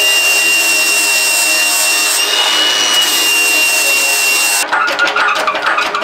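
Cordless angle grinder with an abrasive disc grinding a small steel plate: a steady high whine over harsh grinding noise, which rises slightly in pitch about two seconds in. It cuts off suddenly near the end, and music with a beat follows.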